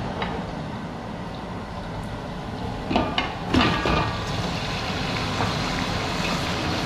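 Cooked meat pieces tipped from a ceramic plate into a large aluminium cooking pot, knocking and clattering a few times about three to four seconds in, over a steady low rumble.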